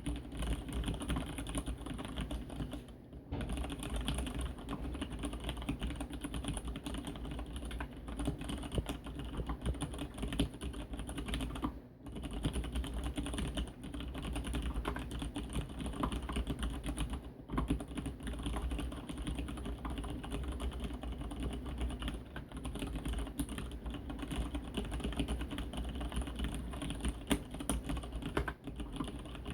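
Fast, continuous typing on a Leopold FC750R mechanical keyboard with Cherry MX Brown tactile switches, with short pauses about 3, 12 and 17 seconds in. The desk resonates hollowly under the keystrokes.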